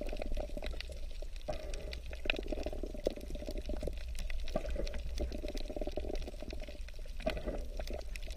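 Underwater sound picked up by a camera on a coral reef: a steady rush of moving, bubbling water with a low rumble and many scattered sharp clicks and crackles.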